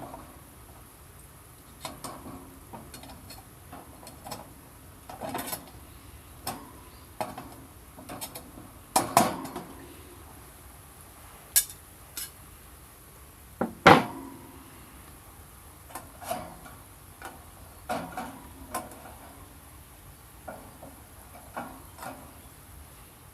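Irregular clatter of objects being handled, with a short knock or clink every second or so; the loudest come about nine and fourteen seconds in.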